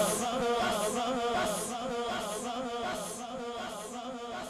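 Male naat reciter's chanted voice trailing off through a held, wavering note that slowly fades. Soft hissing beats keep time about every three-quarters of a second.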